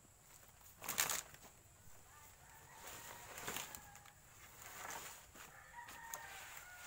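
Chickens clucking faintly in the background, with a brief loud rustle close to the microphone about a second in.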